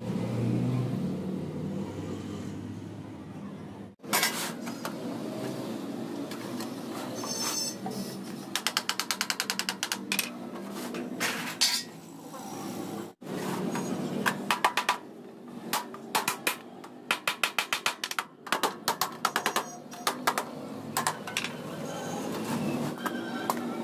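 Sheet-metal work on steel cupboard parts: bursts of rapid metallic taps and knocks, about six or seven a second in places, over a steady workshop din, breaking off abruptly twice.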